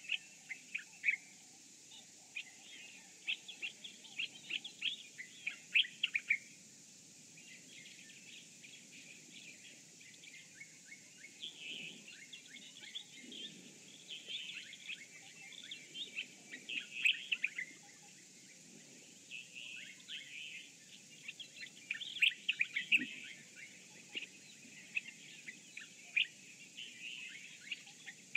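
Wild birds chirping and calling in a dawn chorus: many quick, overlapping short notes in bursts, over a faint steady high-pitched hiss.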